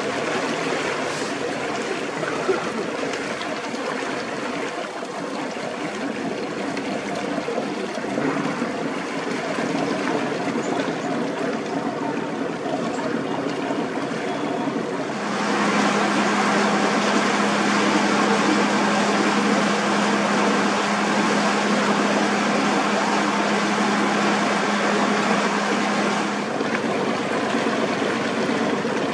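A boat's motor running steadily, with water rushing along the hull. The hum and the water grow louder about halfway through and ease again near the end.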